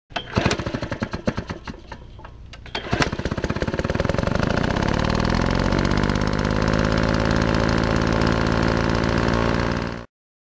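An engine sputtering with irregular pops, then catching about three seconds in and running steadily in a rapid, even pulse. It cuts off suddenly near the end.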